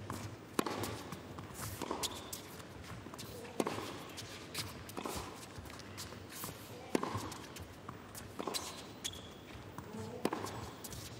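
Tennis rally on an indoor hard court: racket strikes on the ball, about seven of them roughly a second and a half apart, ringing in a large hall.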